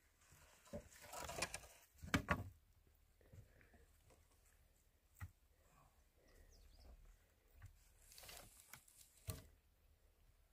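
Quiet scattered knocks and scrapes from hands working among wooden poles and earth in a dirt pit, the loudest a short cluster of knocks about two seconds in, with brief scratchy rustles about a second in and again about eight seconds in.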